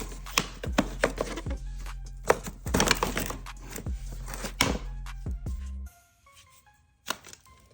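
Background music with a steady bass under irregular clicks and knocks of plastic AC vents being twisted out of a dashboard bezel. About six seconds in, the bass and the clicking stop, leaving only a faint melody.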